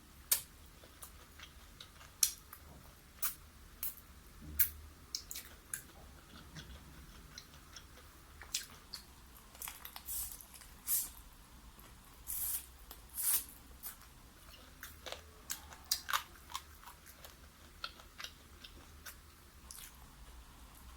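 A person chewing and biting food close to the microphone, with irregular sharp crunches and mouth clicks.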